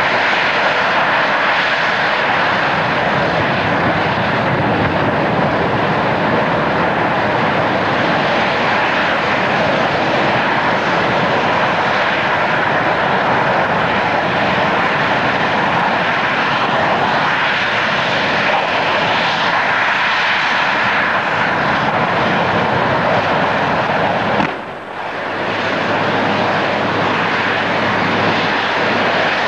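Loud, steady jet-like roar of a burning gas jet blazing from a vertical standpipe, a mock well fire. The roar dips briefly about 25 seconds in, then carries on with a low steady hum beneath it.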